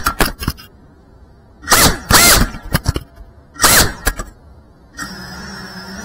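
FPV quadcopter crashing: its motors cut out with a few sharp knocks, then spin up in two short whining bursts about two seconds apart while it lies on the ground. It settles into a low steady hum near the end.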